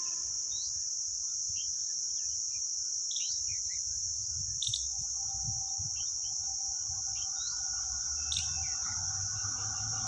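Steady high-pitched insect drone with birds chirping now and then over it. From about halfway, the faint steady hum of an approaching train comes in and grows a little louder.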